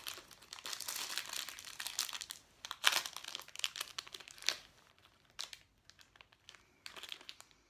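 Small crinkly packet of Pokémon Ramune candies being worked and torn open by hand: a rustling crinkle with sharp snaps of the wrapper, the loudest about three seconds in, thinning to scattered crackles toward the end.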